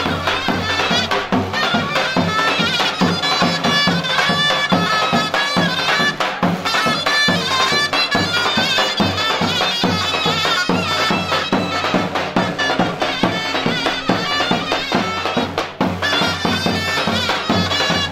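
Folk dance music: a shrill reed wind instrument plays a fast, wavering melody over a steady drum beat.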